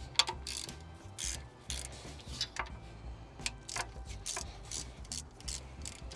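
Hand tools working on bolts at the front of a Ram 50 engine: irregular metal clicks and short scraping rasps, several a second at times.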